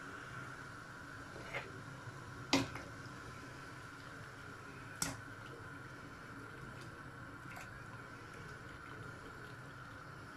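Turnip tops in a pot of boiling water on a gas hob, bubbling quietly under a steady hum, with a few light clicks.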